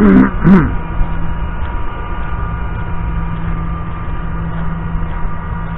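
A steady, low mechanical hum with a few constant tones in it, over a low rumble. Two short voice sounds come at the very start.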